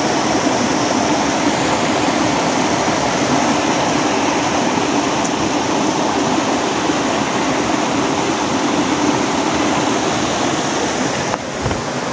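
Shallow creek water rushing steadily over and between rocks: a continuous loud splashing hiss. It drops a little in level shortly before the end.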